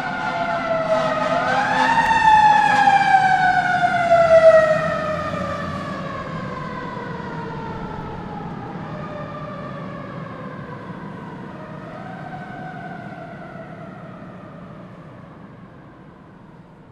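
Fire truck siren wailing over a low engine rumble: the pitch rises about a second in, then falls in one long slow glide, with a smaller rise and fall later. The siren is loudest a few seconds in, then fades gradually.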